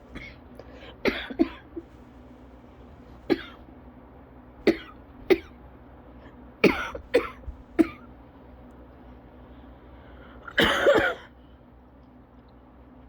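A person coughing in a cough variant asthma attack: short single coughs every second or so, then after a pause one longer, louder hacking cough about ten and a half seconds in.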